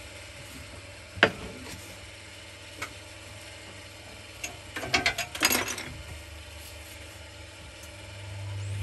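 Clicks and knocks of handling at a benchtop bandsaw, with one sharp knock about a second in and a cluster of clicks around the middle, over a steady low hum. Near the end a hum swells as the bandsaw's motor is switched on.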